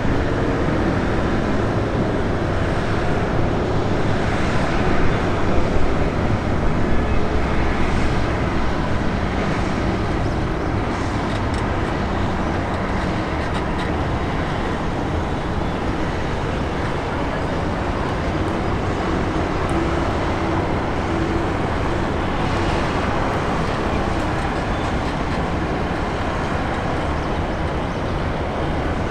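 Steady roar of a wide-body jet airliner landing, a little louder about five seconds in.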